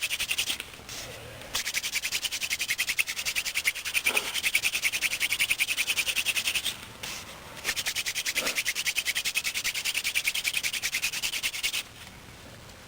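Cattail spindle of a hand drill spun rapidly back and forth between the palms in the notch of a willow hearth board: a fast, rhythmic squeaking rub of wood grinding wood, with two short breaks and then stopping about twelve seconds in.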